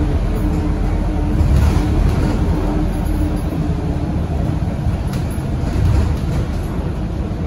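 Interior ride noise of a Scania K230UB single-deck bus on the move: a steady low rumble from its rear-mounted five-cylinder diesel engine, with tyre hiss on a wet road. A steady hum sounds at first and fades out about three seconds in.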